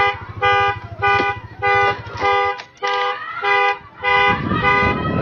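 Car alarm sounding a two-tone horn in short, even blasts, nearly two a second.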